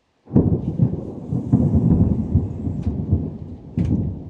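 Dry thunder, with no rain falling: a sudden loud clap about a third of a second in, then a long low rumble that swells again near the end.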